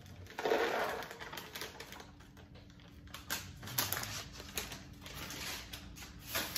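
Quick, irregular light clicks and taps of household items being handled, with a louder rustling clatter just under a second long near the start.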